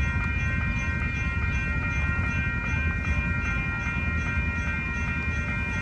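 Railroad crossing signal bell ringing steadily, about two strikes a second, while the crossing's warning lights flash for an approaching or passing tram. A continuous low rumble runs beneath it.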